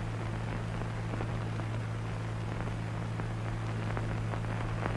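Steady low hum with hiss and faint, scattered crackles: the background noise of an old film soundtrack between lines of narration.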